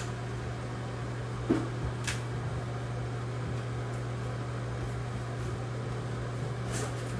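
Steady low hum of background machinery, with a few light clicks or taps about a second and a half in, around two seconds in, and near the end.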